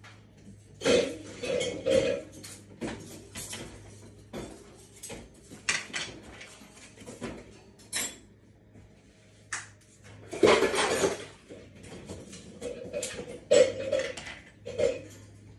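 Irregular clinking and clattering, a few knocks at a time, with the loudest clatter about ten and a half seconds in.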